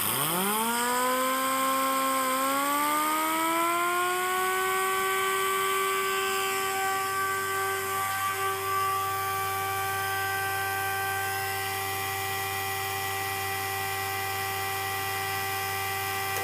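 A small motor spinning up: a whine that climbs in pitch over the first few seconds, then runs steady at speed.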